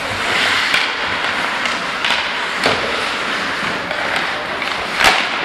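Ice hockey play: skate blades scraping across the ice under a steady hiss, with several sharp clacks of sticks and puck, the loudest about five seconds in.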